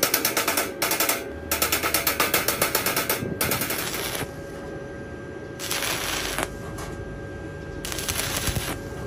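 Stick (shielded metal arc) welding on an iron rod with an E6013 electrode: the arc crackles and sputters in short bursts, struck and broken several times. The first three seconds are a rapid rattling sputter; shorter bursts follow about six seconds in and near the end, with a faint steady whine underneath.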